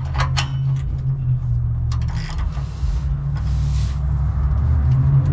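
Ratchet and oxygen-sensor socket working a downstream O2 sensor loose from the exhaust: a few sharp clicks near the start, then two scraping, creaking spells as the threads turn, over a steady low hum.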